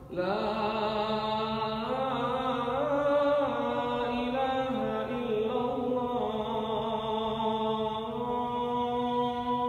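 A man's solo voice calling the adhan, the Islamic call to prayer, in the Makkah style: one long unbroken phrase, held and ornamented, its pitch sliding and stepping between notes. The call rings in a stone vaulted hall.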